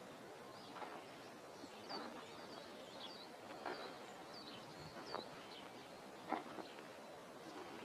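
Small birds chirping faintly now and then over a steady outdoor hiss, with a few soft irregular thuds about every second or so.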